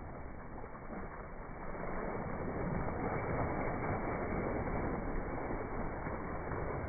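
Water rushing and splashing as a child slides down an inflatable water slide into its wet landing area, a steady noisy wash that grows louder about two seconds in.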